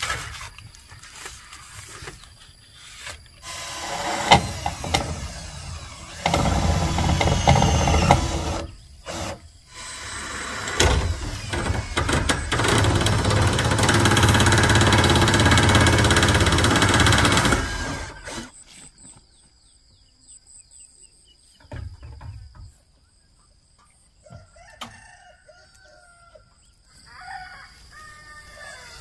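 Cordless drill driving self-tapping screws through a corrugated metal roofing sheet: a shorter run of about two seconds, then a long one of about seven seconds, with knocks of the sheet between. Afterwards it is much quieter, and a rooster crows near the end.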